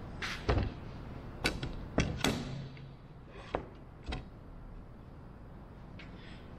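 Wooden airplane parts being handled on a workbench: a wooden stabilizer frame and a loose wooden strip knock and clatter against the bench, several sharp knocks in the first four seconds, then quieter.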